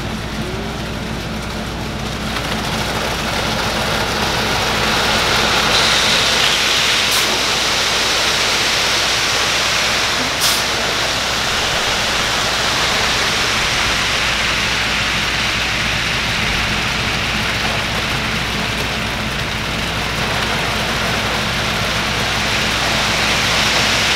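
Concrete mixer truck running while wet concrete pours down its chute into the slab form: a steady rushing hiss over a constant low engine hum, with one short click about ten seconds in.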